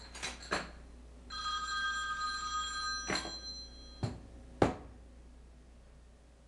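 A telephone ringing: one ring of about two seconds in steady high tones. A few sharp knocks fall around it, the loudest about four and a half seconds in.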